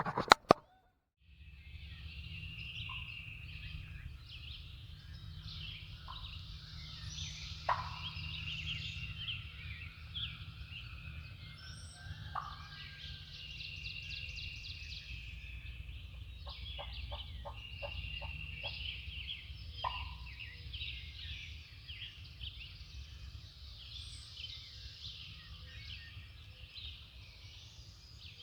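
A wild turkey gobbles a few times, about 8, 12 and 20 seconds in, over a steady chorus of songbirds. Two sharp clicks sound right at the start.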